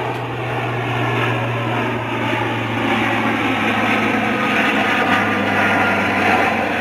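Military transport aircraft's engines running overhead, a loud steady drone with a constant low hum beneath it.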